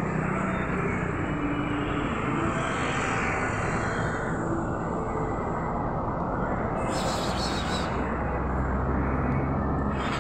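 Steady low rumble with a hum that grows stronger near the end, and a brief hiss about seven seconds in.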